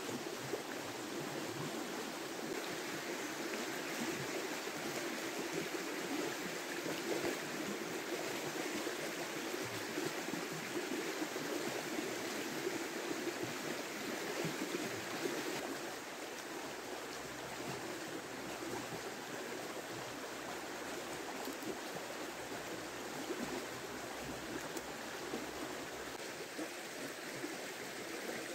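A river running: a steady rushing of flowing water, a little quieter from about halfway through.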